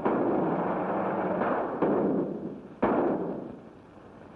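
Gunshots in a mine tunnel: three or four sharp shots about a second apart, each followed by a long rolling echo off the rock.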